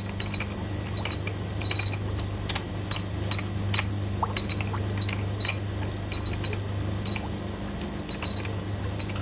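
Computer keyboard being typed on, with short high electronic beeps in quick irregular runs of one to three and scattered key clicks, over a steady low hum.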